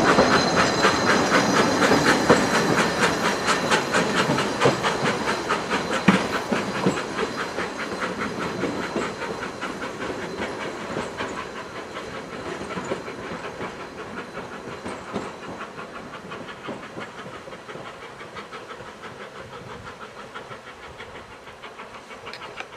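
Carriages of a 3 ft narrow-gauge steam train rolling past, their wheels clicking rhythmically over the rail joints with a hiss beneath. The sound fades steadily as the train draws away.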